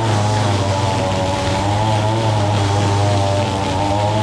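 Two-stroke Echo SRM-225 string trimmer running steadily while cutting overgrown grass. Its whine wavers slightly in pitch as the spinning line meets the grass.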